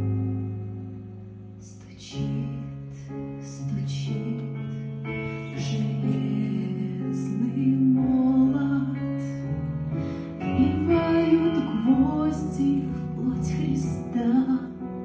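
Instrumental introduction of a backing track for a slow Christian song: sustained chords, growing fuller about two seconds in as more instruments and light percussion join, with a melody line above them.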